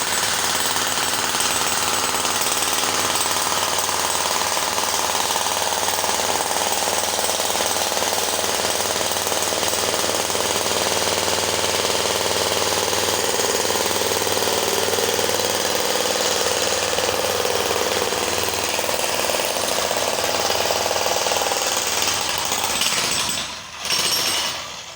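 Jackhammer hammering continuously, a dense, steady chattering racket. Near the end it stops, gives one short final burst, and cuts off.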